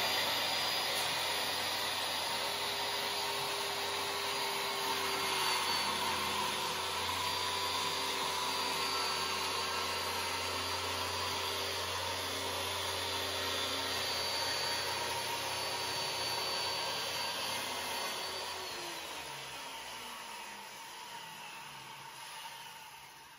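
Corded circular saw fitted with a new Diablo 7-1/4-inch 24-tooth framing blade, running at a steady high whine as it cuts through a countertop. Near the end the trigger is released and the motor winds down, its pitch falling as it fades.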